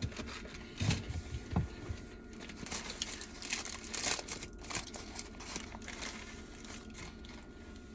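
Paper fast-food sandwich wrapper crinkling and rustling in irregular bursts, mixed with chewing.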